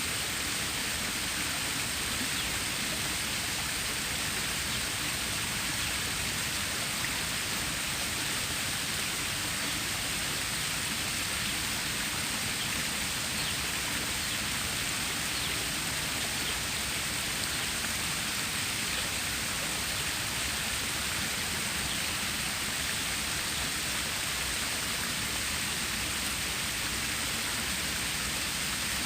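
Water stream running: a steady, even rushing of water with no breaks or changes.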